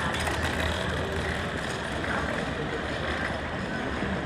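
City street traffic: a motor vehicle running close by, its low engine hum strongest in the first second, over a steady wash of street noise.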